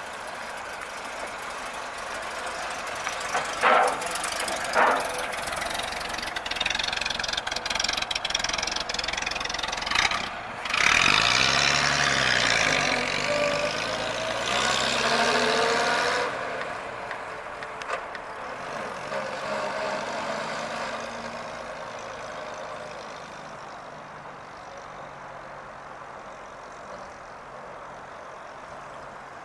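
1928 Studebaker Dictator running and driving, with two sharp knocks a few seconds in. The engine and tyre noise swells loudly as the car passes close by about a third of the way in, then fades as it drives off.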